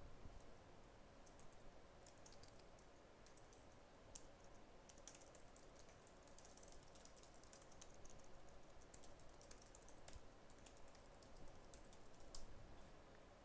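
Faint typing on a computer keyboard: irregular key clicks, with a few brief pauses and a slightly louder tap near the end.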